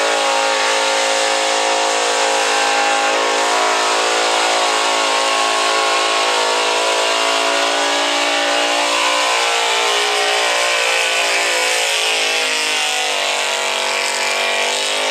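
Gas-powered Ford pickup's engine held at high revs under full load as the truck pulls a sled down a dirt track. The note is steady and sags a little in pitch near the end as the load builds.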